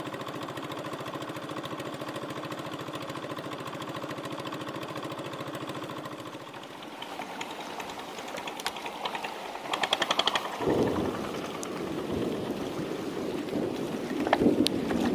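A small boat engine running steadily, then dying away about six seconds in. It is followed by scattered knocks and clicks and then water sloshing and splashing.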